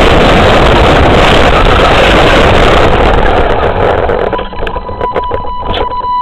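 Radio-controlled car driving, heard from a camera on its rear spoiler: a loud, even rush of drivetrain, tyre and wind noise that fades away about three seconds in as the car stops. After that come scattered clicks of hands on the chassis and a steady high beep.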